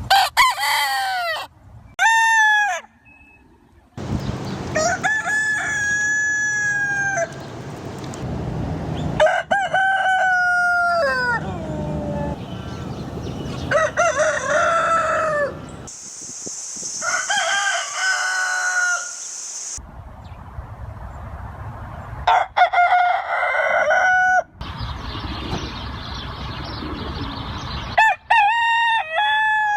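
Roosters crowing one after another, about eight crows in all, each a long drawn-out cock-a-doodle-doo, from different recordings joined with abrupt changes in background noise between them.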